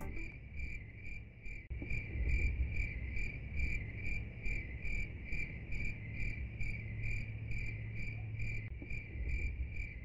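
Cricket chirping steadily, about three short, even chirps a second, over a low hum.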